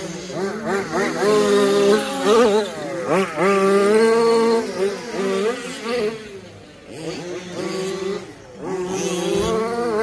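Motors of remote-control racing trucks whining, several at once, their pitch rising and falling as the throttle is worked, fading for a moment near the end before coming back.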